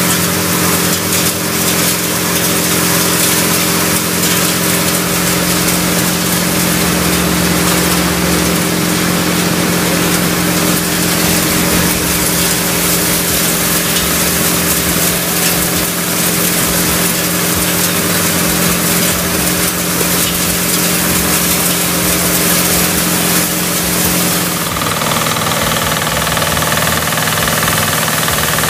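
Vidhata stationary threshing machine running, driven through a PTO shaft by a Pasquali 10.5 HP two-wheel tractor engine: a steady engine hum under a loud rushing whir of the threshing drum and fan blowing out chopped straw. About 25 seconds in the hum changes pitch and higher steady whining tones come in.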